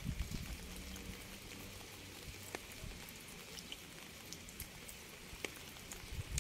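Steady rain hiss with scattered individual drops ticking, and a faint low tone dying away in the first couple of seconds.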